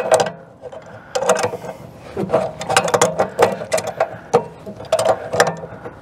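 Channel-lock pliers working an RV water heater's pressure-relief valve loose and spinning it out of the tank: a quick, uneven run of metallic clicks and scrapes as the jaws slip, re-grip and turn the valve.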